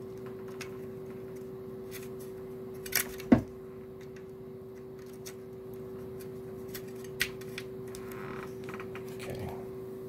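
Small plastic clicks and knocks of a 34-pin floppy ribbon cable connector being handled and pushed onto a 5.25-inch floppy disk drive: a pair of sharp clicks about three seconds in, the loudest, and another click near seven seconds, over a steady hum.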